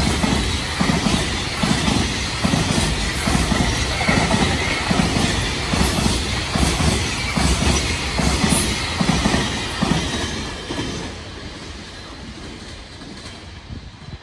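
Freight train of container flatcars passing close by, wheels clacking over the rail joints in a steady rhythm; the clatter fades away about ten seconds in as the last wagons go by.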